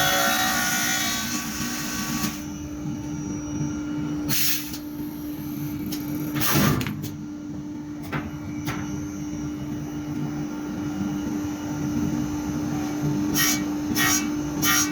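Cylindrical wood-toy making machine running with a steady motor hum and rumble, with short bursts of cutting noise a few times.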